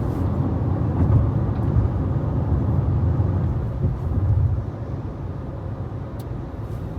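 Steady low rumble of road and engine noise inside a moving car's cabin, easing a little about two-thirds of the way through.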